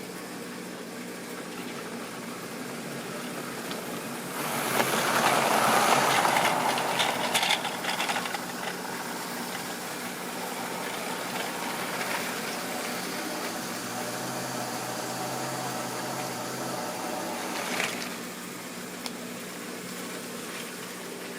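Model railway train running on track: the locomotive's electric motor humming and the wheels rumbling over the rails, growing louder as it passes close by from about four to eight seconds in, then settling back to a steady run.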